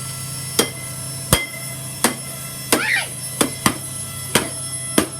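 A Shark Rotator vacuum cleaner being struck with hard repeated blows, about eight sharp whacks roughly one every 0.7 seconds, over a steady low hum.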